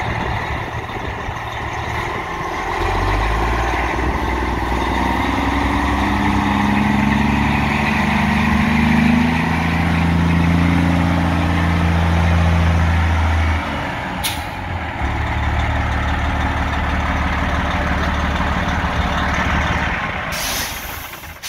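Diesel engine of a 2006 Freightliner truck tractor pulling and running up and down in pitch as it drives, then dropping back to a steady idle after a short hiss of air. Near the end comes a loud hiss of air from the air brakes, and the engine note falls away.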